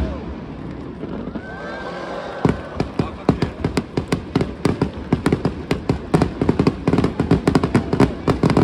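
Aerial fireworks bursting into gold stars overhead, going into a dense run of rapid crackling pops from about two and a half seconds in.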